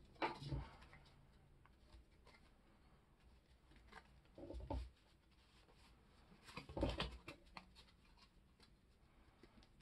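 Faint handling noise of paper trading cards being shuffled, squared up and set down on a wooden desk. There are soft rustles and three louder taps: about half a second in, around four and a half seconds, and the loudest near seven seconds.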